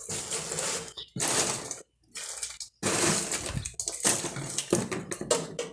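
Dry eggshells and dried peels crackling and rattling as they are dropped into a denim jeans leg and packed down, in several stretches with short silent gaps between.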